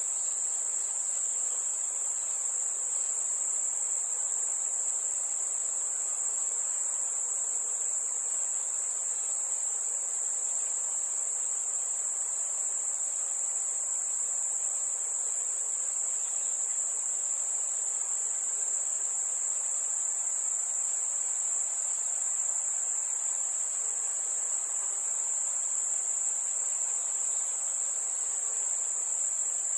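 Night ambience of crickets trilling in a steady chorus: one high, unbroken band of sound that never pauses, over a faint even hiss.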